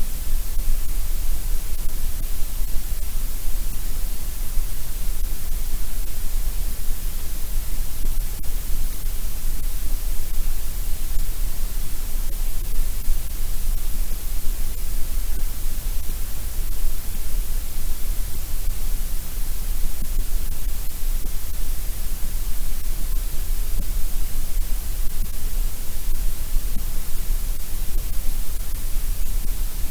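Steady white noise for sleep: an even, unbroken hiss across the whole range, with no change in level or character.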